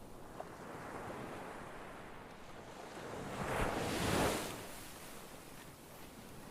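Ocean surf: a steady wash of waves, with one wave building and breaking in a loud hiss about halfway through, then dying back.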